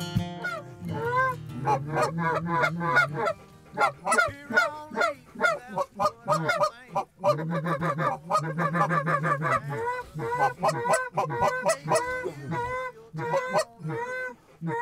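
A flock of Canada geese honking, many short calls overlapping in quick succession.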